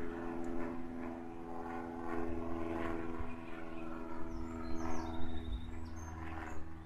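A steady engine drone of several even tones, fading near the end, with a few brief bird chirps about five seconds in.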